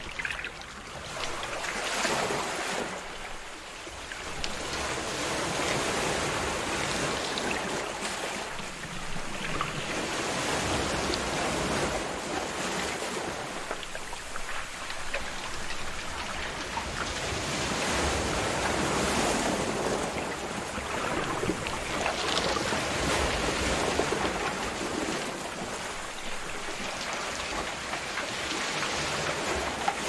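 Ocean surf: waves breaking and washing in, the rushing noise swelling and easing every several seconds.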